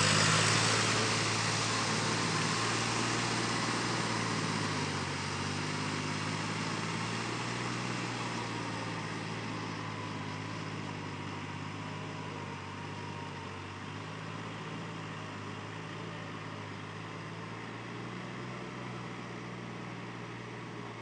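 Sonalika DI 740 III tractor's diesel engine running steadily under load as it drags a rotary tiller through a flooded paddy field, fading as the tractor moves away.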